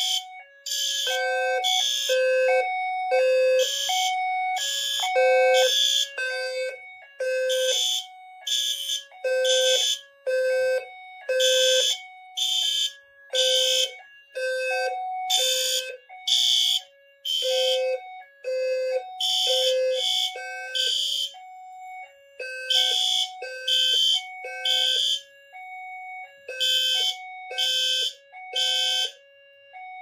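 Fire alarm notification appliances sounding in alarm, blasting on and off in the code 3 temporal pattern. The sound is System Sensor ceiling horn strobes on the panel's System Sensor sync, mixed with the low-pitched tone of the B200SRLF low-frequency sounder base under the activated smoke detector.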